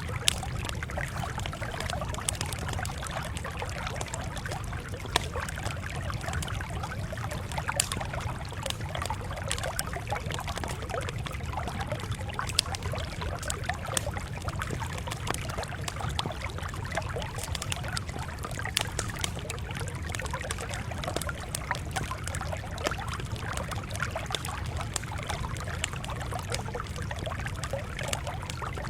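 Wood fire crackling: irregular sharp pops and snaps over a steady low rumble and hiss.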